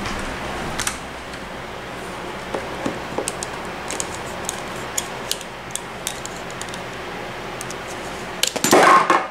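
Light clicks and taps of small objects being handled on a tabletop as a hand picks up a plug-in surge protector, with a louder burst of handling noise near the end.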